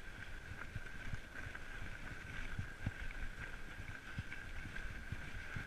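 Fat bike rolling over snowy, bumpy trail: a steady rumble with frequent small knocks as the bike and its handlebar-mounted camera jolt over the ruts, and a thin steady whine underneath.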